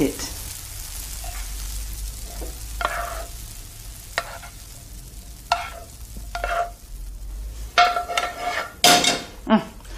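Egg-fried rice sizzling in a hot frying pan with a steady hiss, then a utensil scraping and knocking against the pan several times with a short metallic ring, more often near the end.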